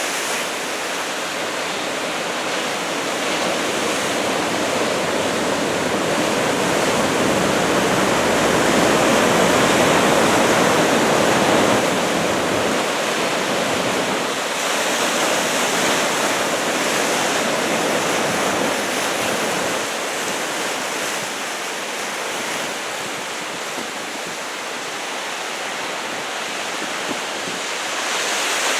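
Heavy typhoon surf of about two metres breaking on the shore: a continuous rush of waves that swells louder about a third of the way in, then eases off.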